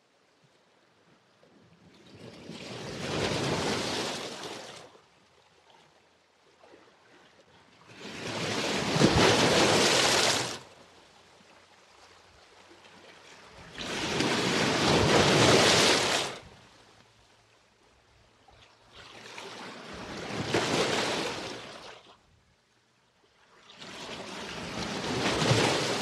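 Sea waves surging in, five times about six seconds apart, each swelling and falling away over two to three seconds with near quiet between.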